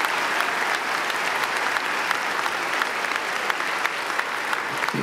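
Audience applauding: many hands clapping densely and steadily, easing off a little near the end.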